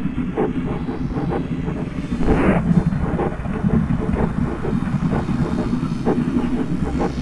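Industrial-style soundtrack: a dense, steady low mechanical rumble scattered with irregular clicks and knocks, with a short swell of hiss about two and a half seconds in.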